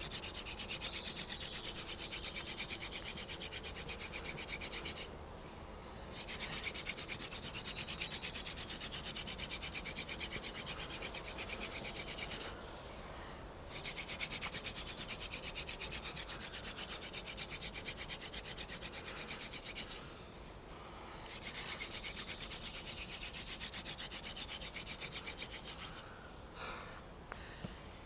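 Hand-drill friction fire: a wooden spindle twirled back and forth between the palms, grinding in the fireboard's socket with a fast, steady rasping rub. It breaks off three times for a second or so and stops about two seconds before the end. The attempt does not light.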